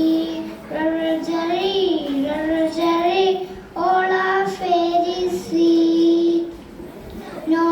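A young girl singing a nursery rhyme solo, in sustained melodic phrases. There is a short pause for breath near the end before she picks up again.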